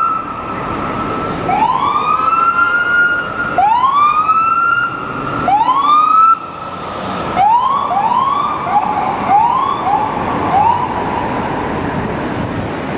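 NYPD police car's electronic siren sounded in short whoops: each rises quickly in pitch, holds briefly and cuts off, about every two seconds at first, then in a quicker run of shorter whoops, then a pause near the end. Under it, a steady hum of city traffic.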